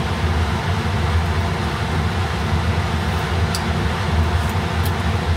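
Pot of mung bean stew at a rolling boil on the stove, under a steady fan-like rush with a strong low hum. Two light ticks in the second half.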